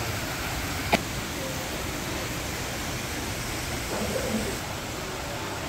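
Small artificial waterfall pouring into a rock fish pond: a steady, even rush of falling water, with one sharp click about a second in.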